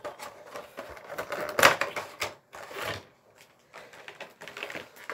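A Funko Pop box being opened by hand: a run of clicks, crackles and rustles from the cardboard box and its plastic packaging, loudest about a second and a half in, then fainter handling.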